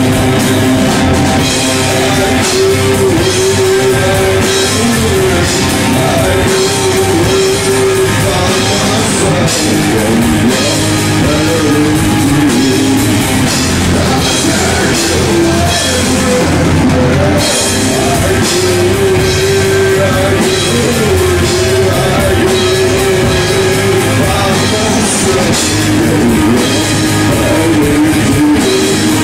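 Stoner rock band playing live: electric guitars over a drum kit, with a wavering guitar melody line held above a steady low part and cymbals crashing.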